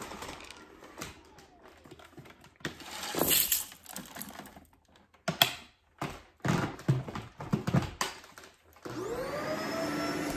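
Small hard debris dropped onto carpet in a scatter of clattering knocks, then near the end a vacuum cleaner's motor starts up with a rising whine that settles into a steady run.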